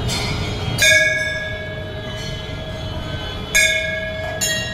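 Temple bell struck three times, once about a second in and twice close together near the end, each strike ringing on and slowly fading, over a steady low murmur of the crowd.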